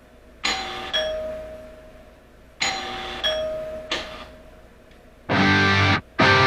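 Two-tone doorbell chime rung twice, each time a ding-dong of two ringing notes that fade away. About five seconds in, loud distorted electric guitar music starts in short chopped chords.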